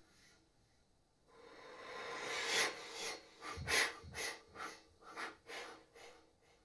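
Unpitched air blown through a clarinet: a breathy hiss swells about a second in, then breaks into short breathy puffs, about two a second, that fade away.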